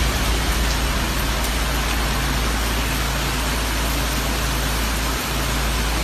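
Heavy rain pouring down, a steady dense hiss with a constant low rumble beneath it.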